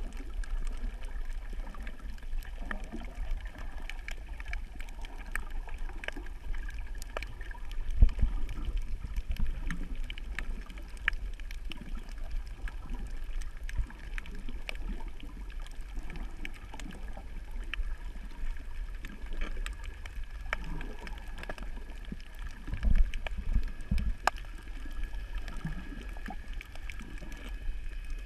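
Underwater sound on a shallow coral reef, picked up by a submerged camera: a steady low rumble of moving water with many scattered sharp clicks and crackles. Two louder thumps stand out, about eight seconds in and again past twenty seconds.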